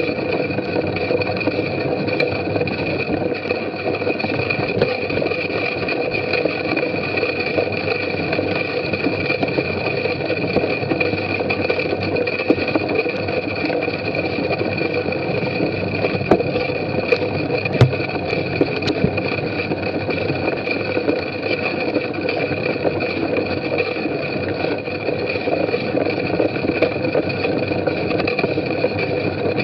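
Steady rushing noise of a bicycle being ridden over a muddy grass course, heard from a camera riding on the bike: tyres on mud and grass, drivetrain and frame rattle, and wind. A few sharp knocks from bumps stand out about 16 to 19 seconds in.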